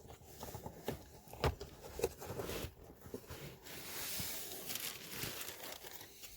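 Plastic cabin-filter cover being handled and fitted back into place: a few scattered clicks and knocks, then a stretch of rustling.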